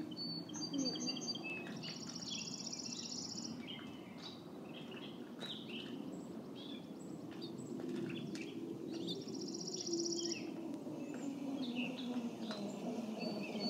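Songbirds singing and chirping in the trees, with two longer trilled phrases, over a low steady motor hum that grows louder near the end.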